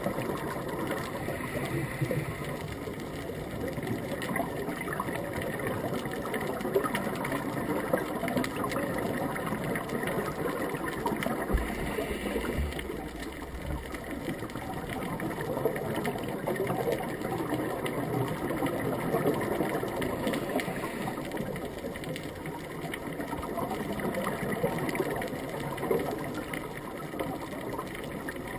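Steady underwater ambience picked up by a camera in a waterproof housing: a continuous muffled rumble with dense fine crackling.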